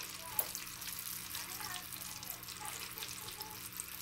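Battered walleye and crappie pieces deep-frying in hot canola oil: a steady sizzle with a fine crackle of popping bubbles.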